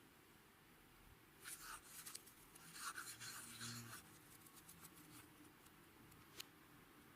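Clear slime being kneaded and stretched by hand: a spell of soft, sticky crackling and clicking starting about a second and a half in and lasting a couple of seconds, then quiet apart from one more click near the end.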